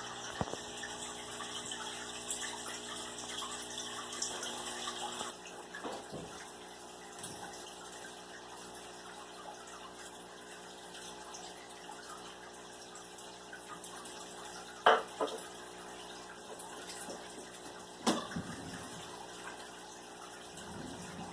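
Water running from a tap into a sink, the flow stopping about five seconds in. Later come two sharp knocks, each followed by a smaller one.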